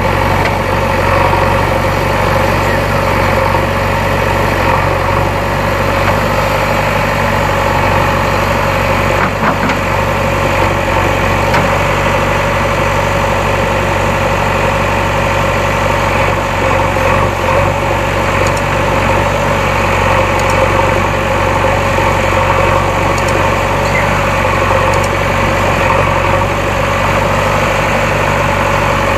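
Diesel engine of a JCB backhoe loader running steadily at an even speed.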